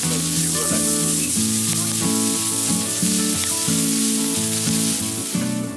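Scallops sizzling as they fry on a hot pan, a continuous loud sizzle, with background music playing a stepping melody over it.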